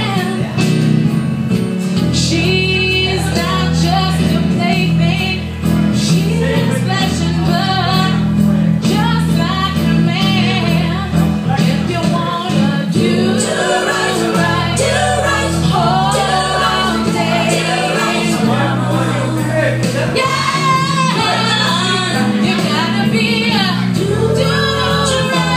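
A woman singing a slow soul ballad live into a handheld microphone over instrumental accompaniment, her voice bending and sliding through long held notes.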